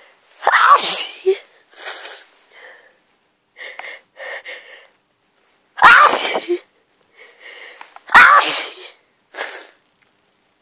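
A person with a head cold sneezing hard three times: wet sneezes, the last two about two seconds apart. Between them come quieter, wheezy gasping breaths as each sneeze builds up.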